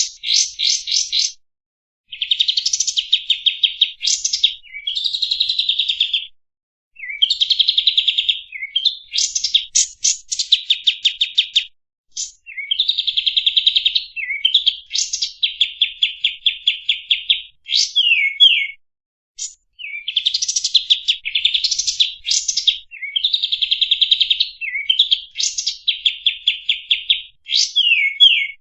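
Kapas tembak songbird singing a varied song of fast, high trills and rattling note series, phrase after phrase with short pauses between.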